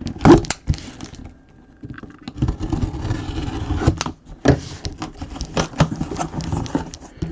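Packaging of an autographed mini football helmet being opened and handled by hand: cardboard and wrapping scraping and crinkling, with many small clicks and knocks. It is sparse for the first two seconds, then busy.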